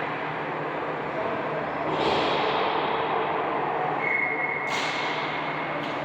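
Steady background noise of a league game in play, growing louder about two seconds in. A steady high tone sounds from about four seconds in for some two seconds, and two sharp cracks come near the end.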